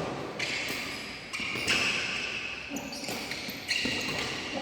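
Badminton play: rackets striking the shuttlecock in sharp smacks, several times, with shoes squeaking on the court floor in short high squeals.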